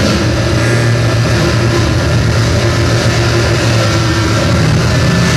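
Harsh noise music from electronic gear: a loud, unbroken wall of distorted noise over a steady low drone, with faint held tones shifting slowly above it.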